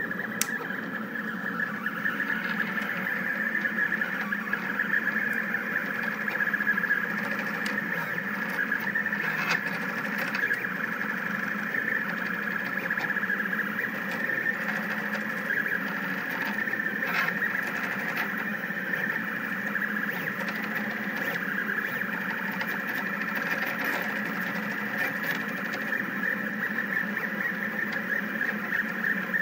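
Rostock delta 3D printer running a print, its stepper motors making a continuous whirring whine that wavers slightly, with a few faint ticks.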